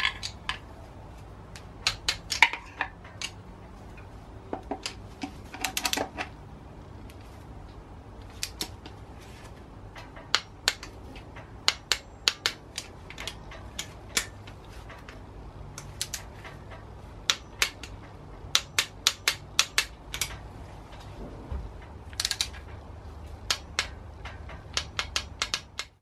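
Hand tools clicking and clinking on metal in irregular runs of sharp clicks, as the bolts of the high-pressure fuel pump brackets on a BMW N47 diesel engine are done up and torqued.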